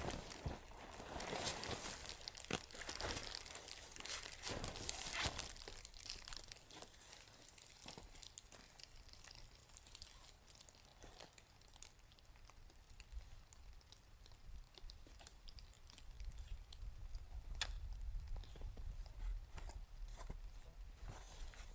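Crunching and crinkling handling noise, busy for the first several seconds, then thinning to occasional clicks and crackles, with a low rumble coming in near the end.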